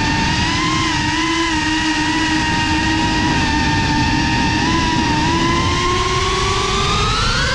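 FPV quadcopter's brushless motors and propellers whining steadily in flight, over a low wind rumble. The whine rises in pitch over the last two seconds as the throttle goes up.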